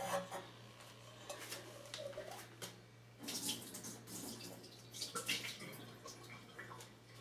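Water trickling and splashing in uneven spurts over a steady low hum.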